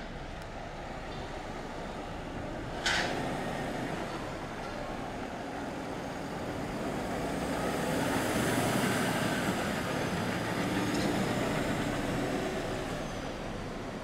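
Loaded dump truck driving past: its engine and tyre noise swells to a peak a little past halfway, then fades away. There is a short sharp noise about three seconds in.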